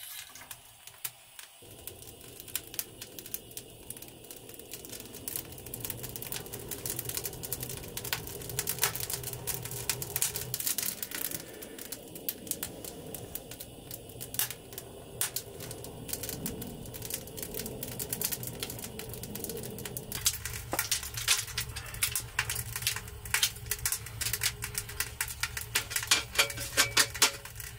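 Wood fire crackling and popping, with quick irregular sharp snaps that come thickest near the end. Under them a low steady rush drops away about twenty seconds in.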